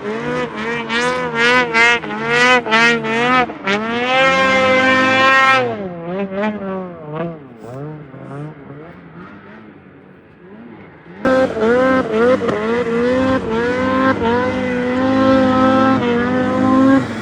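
Snowmobile engine revving up and down over and over as the sled is ridden through snow. About six seconds in it drops to a quieter stretch of rising and falling revs, then comes back loud suddenly about eleven seconds in.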